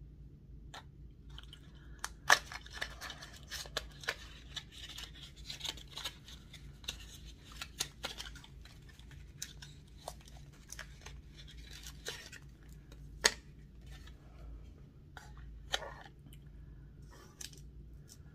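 Cardboard box torn open by hand close to the microphone: crackling and ripping of paperboard with many sharp snaps, the loudest about two seconds in and again past the middle. Toward the end it thins to lighter crinkles as the plastic-wrapped chocolate bar is handled.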